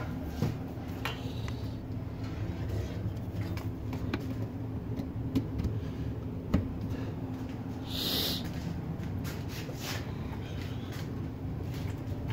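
South Bend lathe running under its newly mounted electric motor, driven through an old worn belt with its gears turning: a steady machine hum with a few light clicks, and a short hiss about eight seconds in.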